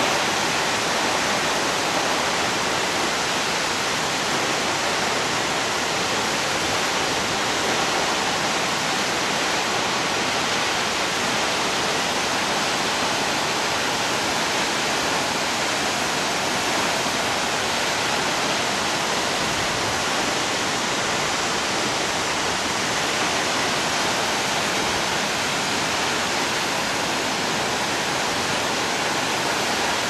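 Waterfall plunging into a pool: a loud, steady rush of falling water.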